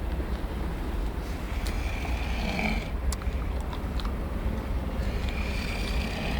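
A person snoring: two long snores about three and a half seconds apart, over a steady low rumble.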